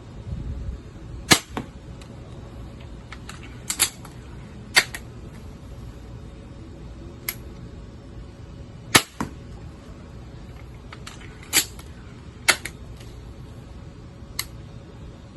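Adder pistol crossbow being shot and recocked: about ten sharp snaps and clacks at irregular intervals, with the loudest about a second in and again about nine seconds in.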